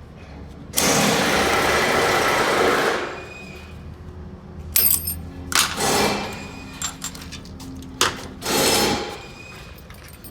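Workshop tool noise while a transmission clutch pack is compressed on a bench-mounted pull-down shaft to free its snap ring. A loud noisy run of about two seconds comes near the start, then metal clicks and clinks and two shorter runs later on.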